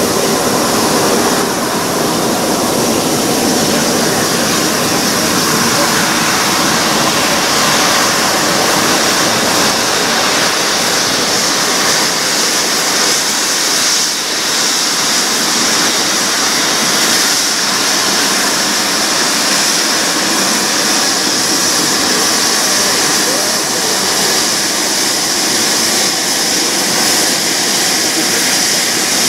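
A GWR Castle Class steam locomotive standing in steam lets out a loud, steady hiss of escaping steam.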